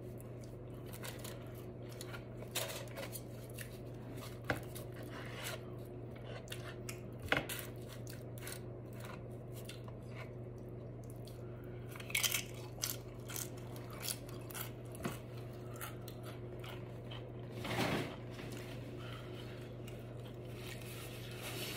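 Close-miked eating sounds: biting and chewing a burrito, with scattered sharp clicks and a few louder crunchy bursts, the biggest about halfway through and near the end. A steady low hum runs underneath.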